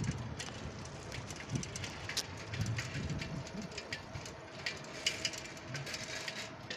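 Quiet outdoor street ambience with irregular crackles and clicks on the microphone, and a faint steady hum from about halfway in.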